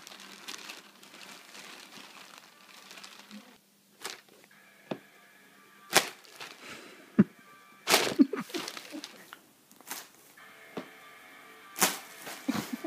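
Shiny plastic bag crinkling and rustling in sharp bursts every couple of seconds as a cat moves around inside and under it.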